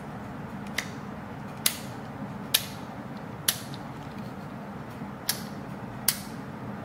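The plastic slider-type guide comb of a Xiaomi Enchen hair clipper clicking through its length settings as it is adjusted: six sharp clicks, unevenly spaced about a second apart.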